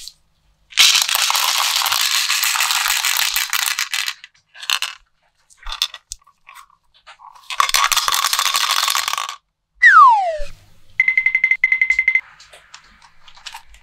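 Small hard-coated chocolate candies pouring and rattling against plastic in two spells of a few seconds each, with light plastic clicks between. Then a falling whistle sound effect and a short warbling electronic tone.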